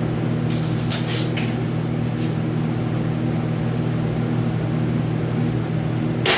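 Steady electrical machine hum, with a few short scraping sounds about a second in and a sharp click near the end.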